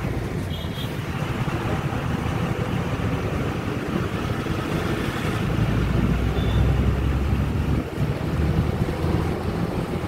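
Steady rumble of a moving road vehicle with wind buffeting the microphone, heaviest in the low end and swelling a little about halfway through.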